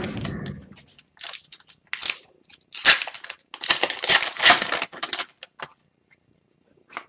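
Foil wrapper of an Upper Deck Series 2 hockey card retail pack being torn open by hand: a soft rustle as the pack is picked up, then about four seconds of sharp crinkling and tearing crackles.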